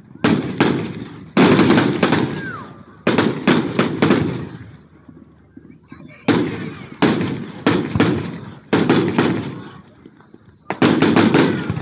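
Fireworks display: a rapid string of sharp bangs from bursting shells, often two or three in quick succession, each trailing off in a rolling echo.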